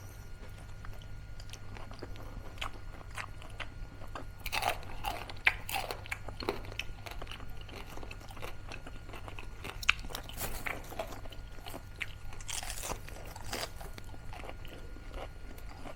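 Crunching bites and chewing of crispy fried pork mesentery (chicharong bulaklak), irregular crackles that come thickest about five seconds in and again near thirteen seconds.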